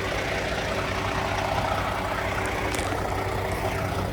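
Heavy engine idling steadily with a low, even hum.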